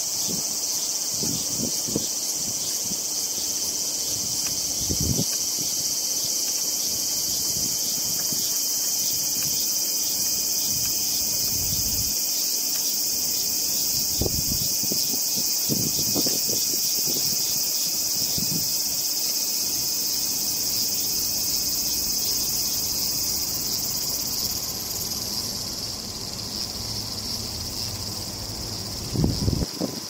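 Steady, high-pitched insect drone of cicadas, unbroken and without a clear pulse, easing off about 25 seconds in. A few low bumps and rumbles come and go, the strongest near the end.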